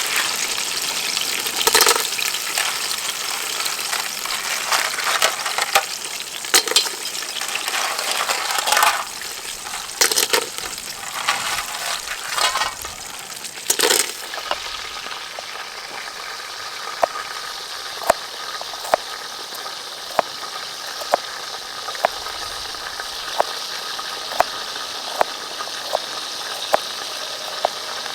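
Food sizzling in hot oil in a cooking pot, with knocks of stirring and handling during the first half. It then settles to a steady sizzle with sharp pops about once a second.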